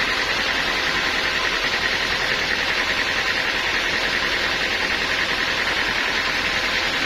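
Portable sawmill running: a steady engine and saw noise with a hiss, unchanging throughout.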